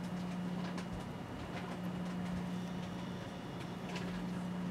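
A few faint light clicks of a small hand tool against a Seiko 6138 chronograph movement's date ring parts, over a steady low hum.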